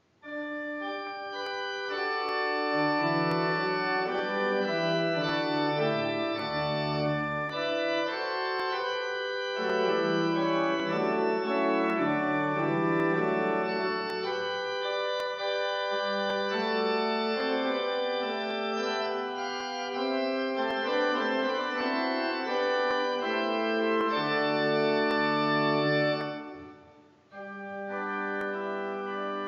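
Church organ playing slow sustained chords over low bass notes. The sound dips away briefly about three seconds before the end, then comes back more softly.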